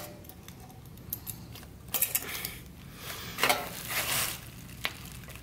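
Metal clinking and scraping as pliers stretch a coil spring and work it against a titanium exhaust pipe joint to hook it into place, with a few separate clinks, a longer scrape about three and a half seconds in, and a sharp click near the end.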